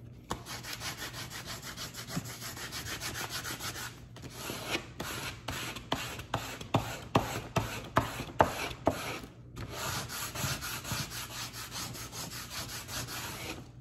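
Handheld scraper rubbed back and forth over a sheet of paper laid on an inked printing plate, scraping to press the paper onto the ink and pull the print. The strokes are quick and raspy, slower and more separate in the middle, with brief pauses about four seconds in and about nine and a half seconds in.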